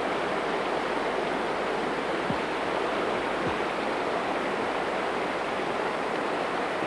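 Fast river rapids rushing over rocks: a steady, even wash of white water.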